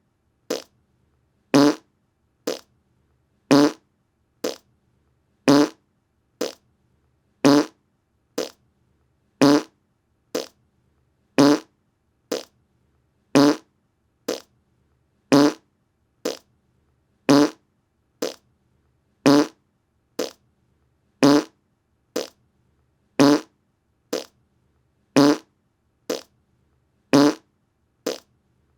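A short fart sound repeated over and over, about once a second, the bursts alternating louder and softer with silence between them.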